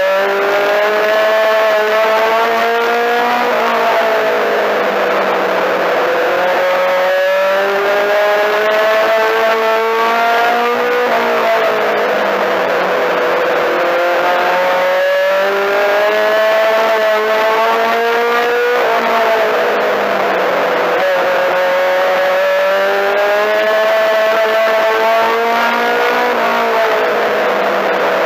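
Four-cylinder Mini-Stock race car engine heard from inside the car at racing speed, its pitch climbing steadily for about three to four seconds along each straight, then dropping sharply as the driver lifts for each turn, repeating lap after lap.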